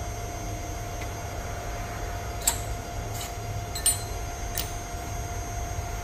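Four short, sharp metallic clicks and clanks, about two and a half to four and a half seconds in and loudest near four seconds, as the tube bender's clamp is released and the freshly bent square aluminium tube is handled off the die. Under them runs a steady machine hum.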